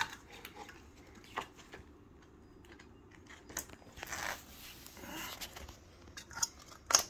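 Glue slime being kneaded and squished by hand: scattered soft clicks, pops and crackles, with a longer squishy crackle about four seconds in. The slime is freshly activated and no longer sticky.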